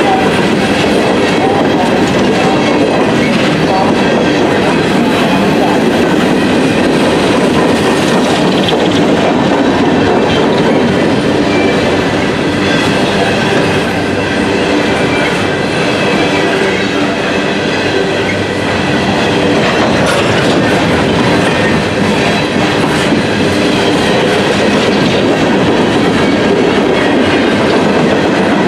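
Empty CSX coal cars rolling past at close range: a loud, steady rumble of steel wheels running on the rails.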